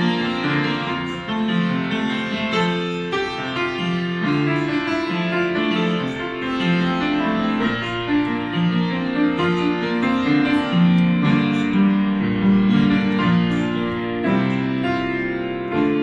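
Han Dok upright piano played by hand: a continuous run of chords and melody.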